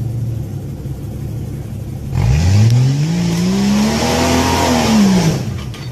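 Off-road 4x4's engine idling low, then revved hard about two seconds in as it climbs a rock slab: the pitch rises, holds and falls away again about three seconds later, with a loud hiss alongside the rev.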